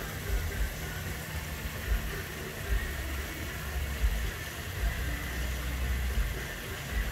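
Small rock waterfall splashing steadily into a garden pond, with irregular low rumbles underneath.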